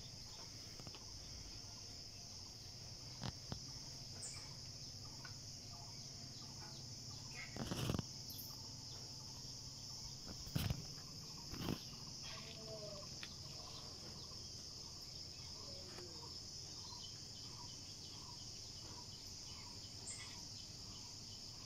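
Steady high-pitched insect chorus, with scattered short bird calls and a few brief louder knocks near the middle.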